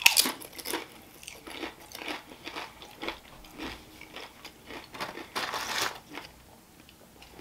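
Close-up crunching of a tortilla chip with spinach and artichoke dip: a loud bite at the start, then crisp chewing crunches, with a longer crackling stretch about five and a half seconds in.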